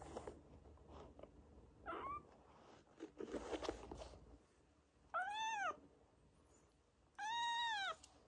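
Young kittens meowing: a short squeak about two seconds in, then two longer, clear meows about five and seven seconds in, each rising and then falling in pitch.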